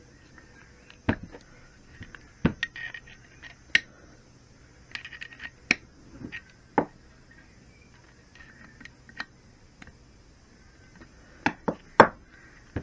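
Irregular metallic clicks and knocks of needle-nose pliers on an aluminium gearbox inner case, with the case being turned in the hands, while a split pin is worked out. The loudest knock comes near the end.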